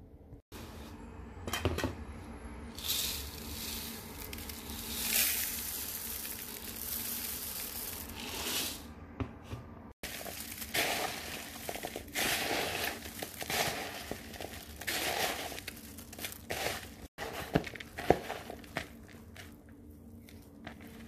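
Dry puffed rice being tossed and mixed by hand with cooked chickpeas in a bowl: crisp rustling and crunching in repeated bursts, cut off abruptly a couple of times.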